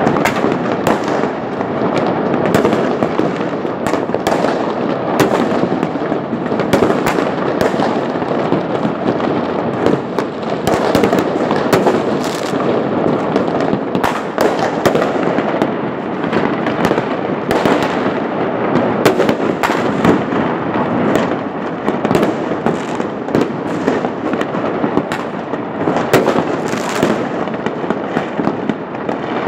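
Many fireworks going off at once across a city, a dense, unbroken barrage of overlapping bangs and crackles with no pause.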